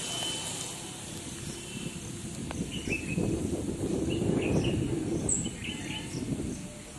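Birds chirping in short calls, over a low noise that grows louder about three seconds in and fades near the end.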